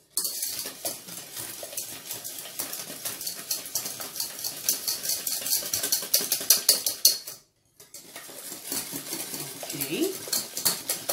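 Wire whisk beating eggs and sugar in a stainless steel bowl: rapid, even clicking of the wires against the metal, broken by one brief cut-out about two thirds of the way through. The sugar is being whisked into the eggs to dissolve it, the start of a pastry cream.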